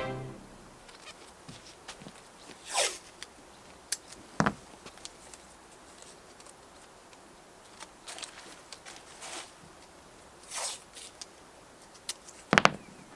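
Sporadic handling sounds of work on the boat: a few short scraping, ripping strokes, a sharp click about four seconds in and a louder sharp knock near the end.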